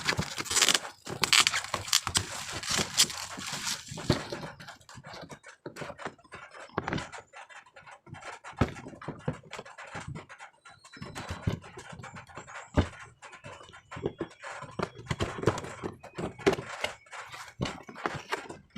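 Irregular handling noises of an unboxing: scrapes, taps and thunks as cardboard packaging and a plastic router are moved about.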